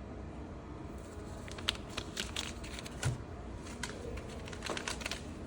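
Plastic packaging crinkling, with scattered small clicks and rustles as the packs are handled.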